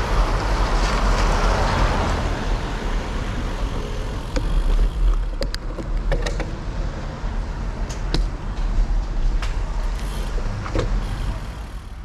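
Wind rumbling on a handlebar-mounted microphone and tyres hissing on a wet road as a bicycle rides along, with a car going past on the wet road in the first couple of seconds. A few sharp clicks and rattles follow as the bike slows into a car park.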